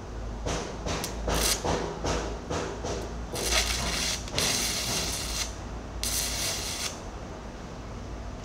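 Electric arc welding on the steel teeth of an excavator bucket. Several short crackling bursts in the first three seconds, then the arc crackles and hisses steadily for about three and a half seconds, with one brief break.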